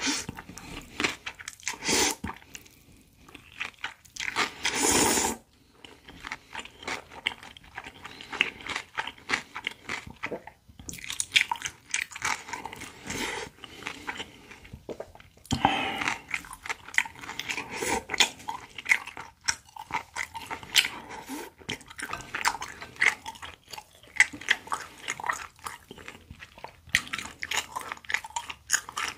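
Close-miked eating of spicy whelk, cucumber and noodle salad: steady crisp crunching and wet chewing with many small clicks, broken by a long slurp of noodles about five seconds in and a shorter one about midway.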